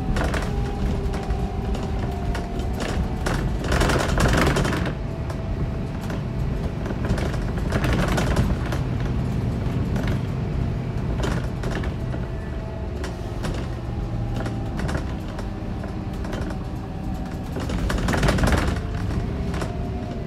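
Inside a Scania K410EB6 coach on the move: a steady low engine and road rumble with faint whining tones that drift a little in pitch. Louder rushes of noise swell up about four, eight and eighteen seconds in.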